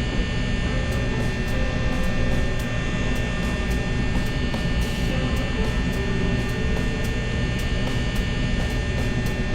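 Electric ceiling fan running, a steady motor hum made up of several constant tones over a low rumble, with faint regular ticking.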